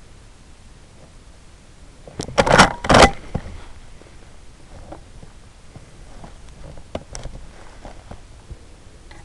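Two quick clusters of sharp knocks and rattles, half a second apart about two seconds in, then a few faint clicks later: handling noise from the pump-action shotgun and its scope-mounted camera.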